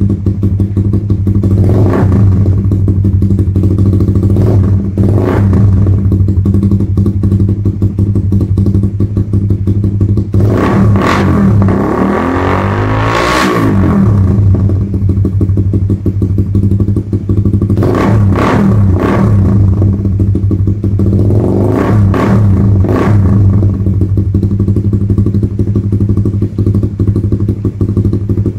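Suzuki Raider 150 Fi single-cylinder engine breathing through a Vmax V37 open-spec exhaust. It idles steadily and is blipped several times, with one longer rev that climbs and falls about ten to fourteen seconds in.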